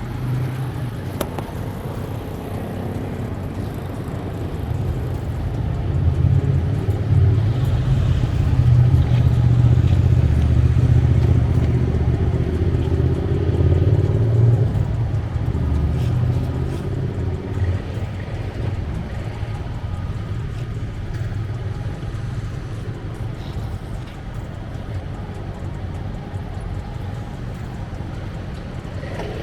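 A motor vehicle's engine running steadily. It grows louder for several seconds in the middle, then settles back.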